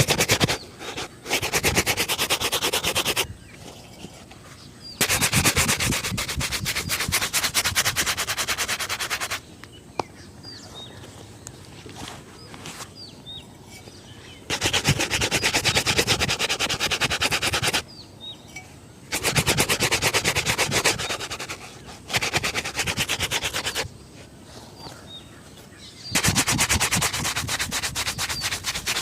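Shoe being buffed with a brush in quick back-and-forth strokes, in about seven vigorous bouts of a few seconds each with short pauses between them.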